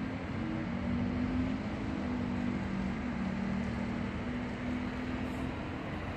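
Steady low vehicle engine drone over road noise.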